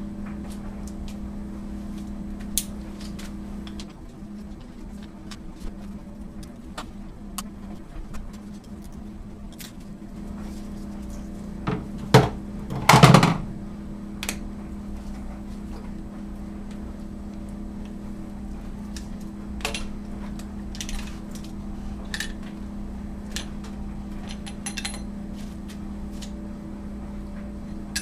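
Scattered metal clinks and knocks of tools on a pump check valve being taken apart, with a louder clatter of about a second and a half near the middle, over a steady low hum.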